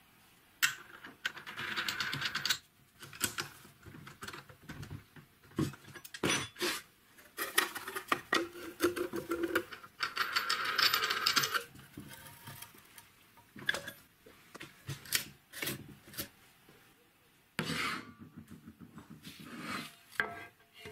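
Metal parts being handled and fitted by hand: irregular clinks, scrapes and rattles as a steel flange and an abrasive cutting disc go onto a threaded shaft and a steel wheel guard is picked up, with a few sharp clicks and a brief ringing of metal near the middle.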